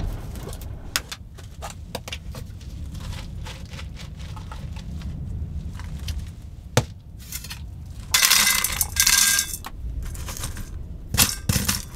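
Old roof vent fan ticking and rattling irregularly in strong storm wind, over a low wind rumble. About eight seconds in, dry dog kibble pours into a stainless steel bowl with a bright rattle for a second or so, followed by a few clinks and knocks in the bowl.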